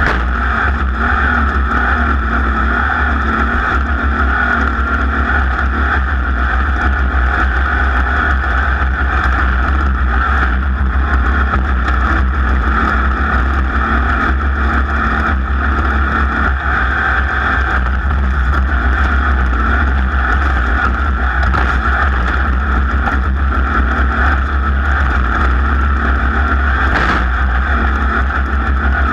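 Racing engine running hard at steady, unchanging revs, heard from on board during a race lap.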